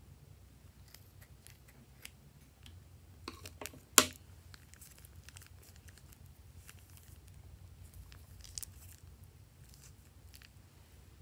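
Scissors cutting the tip off a plastic piping bag, with one sharp click about four seconds in, then soft crinkling of the plastic bag as it is squeezed.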